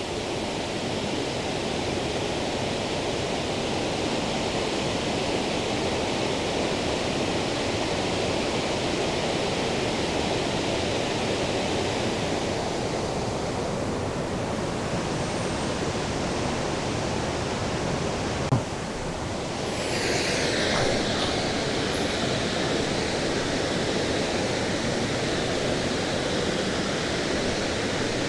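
Steady rush of heavy water pouring over a river waterfall. A single short knock about two-thirds of the way through; after it the rush turns hissier.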